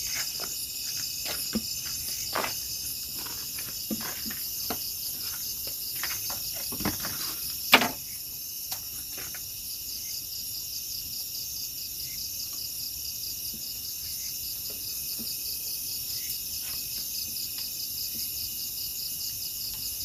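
Steady chorus of crickets and other night insects, several high trilling layers. Scattered knocks and clatter in the first half, the loudest about eight seconds in.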